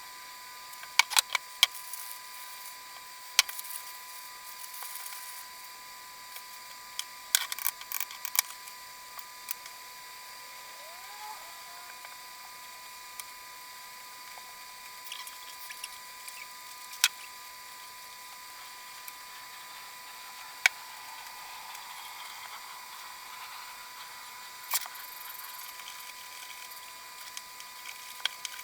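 Scattered sharp clicks and taps of small hard objects being handled, with a cluster about a second in and another about seven seconds in, over a faint steady high hum.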